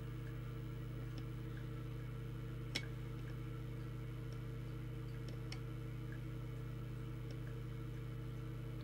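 Steady low electrical mains hum, with a single light click just under three seconds in.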